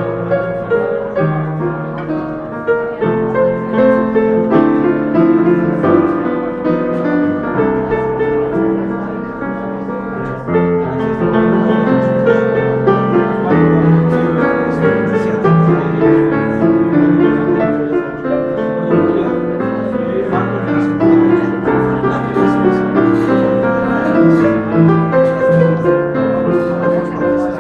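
Piano music played by hand on an old upright piano, with notes and chords throughout. The music changes about ten seconds in.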